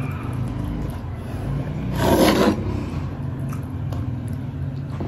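A short scrape about two seconds in, over a steady low hum.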